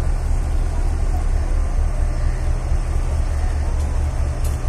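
Steady low engine rumble of a boat on the river, running at an even pace.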